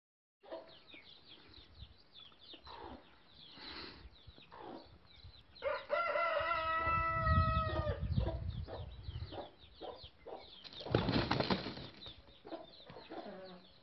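Two roosters squaring off. Short calls come from the flock throughout, and a rooster crows for about two seconds, starting about six seconds in. A loud flurry of wing flapping about eleven seconds in is the roosters clashing.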